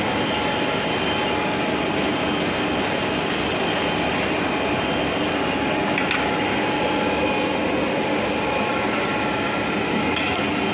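Double-sided wood planer with spiral (insert-type) cutter rollers running, its motor, V-belts and chain drive making a steady mechanical din with a few faint whining tones.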